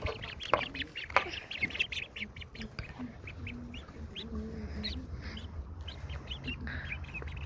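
Ducklings peeping: many short, high chirps in quick, uneven succession.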